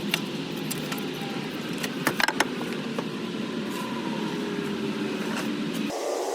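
Scattered sharp metallic clinks of hand tools on car parts, with a quick cluster of louder clinks about two seconds in, over a steady low workshop hum; the hum changes abruptly shortly before the end.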